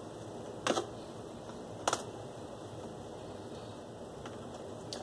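A few short, sharp clicks from a small metal hand tool working the upholstery at the top of the sofa's back: a quick double click under a second in, a single click near two seconds, and a faint one near the end, over a steady low hiss.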